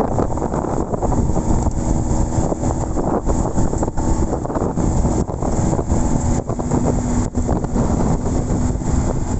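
An engine running steadily under heavy wind noise on the microphone, as from a moving open vehicle.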